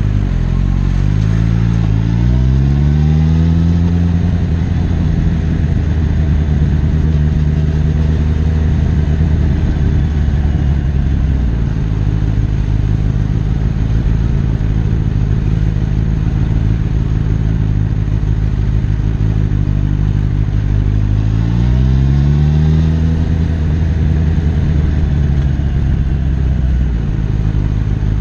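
Suzuki GSX-S1000F's inline-four engine, heard from the rider's seat, pulling up through the revs about a second in, then running steadily at a lower pitch. Later it pulls up through the revs a second time and settles again.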